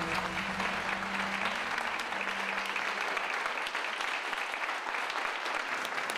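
A group of men applauding, with dense steady hand-clapping.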